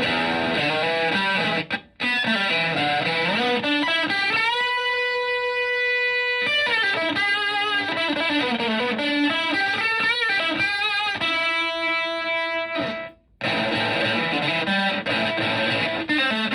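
Electric guitar played through a Zonk Machine fuzz pedal, a Stratocaster into a Fender Twin Reverb-style amp, playing fuzzy chords and riffs. About five seconds in it holds a single sustained note, followed by wavering, bent notes. The sound cuts out briefly twice, about two and thirteen seconds in.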